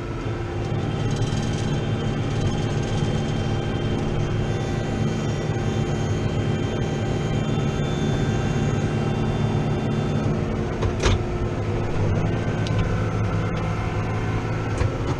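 New Holland T7.210 tractor's six-cylinder diesel engine running steadily under load while pulling a five-furrow plough, heard from inside the cab. A single sharp click about eleven seconds in.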